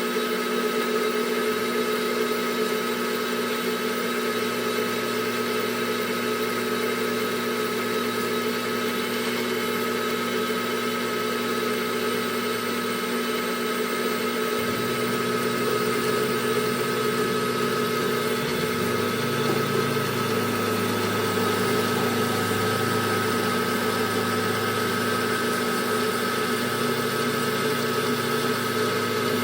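Metal lathe running steadily while a parting tool cuts into a weld on a steel PTO yoke. A low hum under the machine noise drops out about halfway through and comes back a few seconds later.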